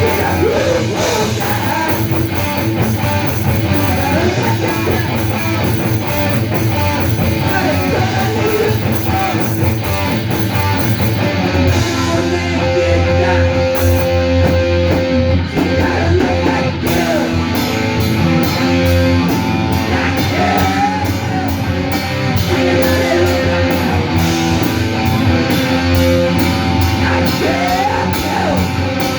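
A rock band playing live: electric guitars, bass and drums, with a singer's voice over the top. The cymbals drop out for a few seconds in the middle and then come back in.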